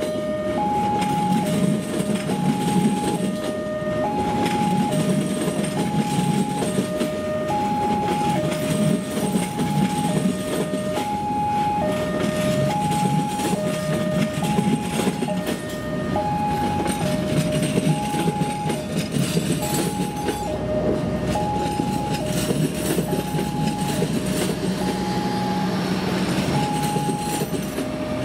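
Railway level-crossing warning alarm repeating an even two-note signal, a higher tone alternating with a lower one. It sounds over the running rumble and wheel noise of a passing electric commuter train (KRL).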